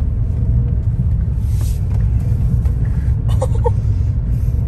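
Steady low rumble inside a Ford Bronco's cabin as it drives along a rough dirt trail: tyre, road and engine noise. There is a short hiss about a second and a half in, and a few brief squeaks a little after three seconds.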